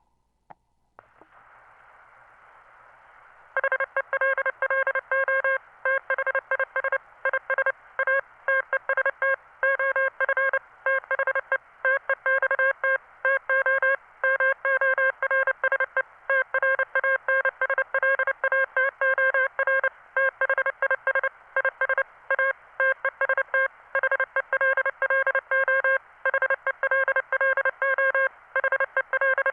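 Morse code from a text-to-Morse converter: one steady, buzzy electronic beep keyed on and off in quick dots and dashes, starting about three and a half seconds in after a couple of seconds of faint hiss.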